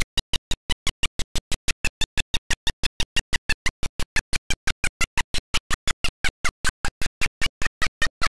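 The sound track stutters, cut into very short bursts about six or seven times a second with silence between them: a recording dropout glitch. Each burst carries a fragment of gym crowd noise.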